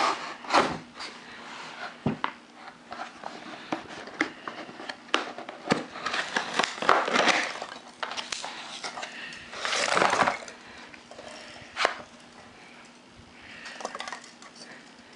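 A cardboard flat-rate shipping box being slit open with a folding knife and handled: irregular scrapes, taps and clicks. About ten seconds in there is a longer, louder rustle of cardboard and foam packing peanuts.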